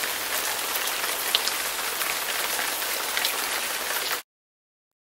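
Steady, rain-like hiss with faint scattered crackles, cutting off abruptly about four seconds in.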